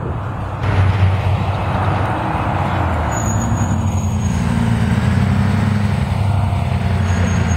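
Diesel engine of an NJ Transit coach bus running as it drives past close by and pulls away, a steady low drone. A thin high whistle sounds briefly about three seconds in.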